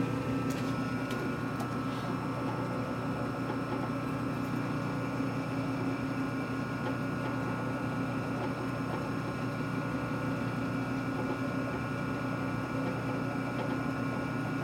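Metalworking machine tool running steadily, making a constant hum with several steady whining tones, as it takes a cut. A few light ticks come in the first couple of seconds.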